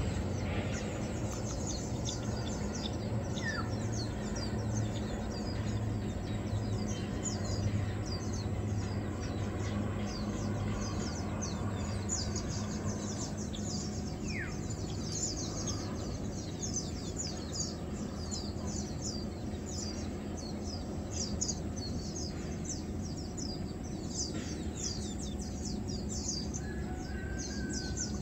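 Many small birds chirping rapidly and high-pitched, with a few lower single calls, over a steady low hum.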